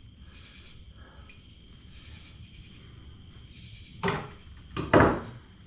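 Faint, steady high-pitched trill of crickets in the background. Two brief louder noises come about four and five seconds in.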